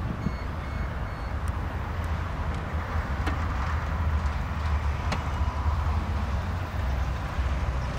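The power liftgate of a 2010 Lexus RX350 finishing its closing travel: a few short high beeps near the start, then sharp clicks as it latches shut, over a steady low rumble.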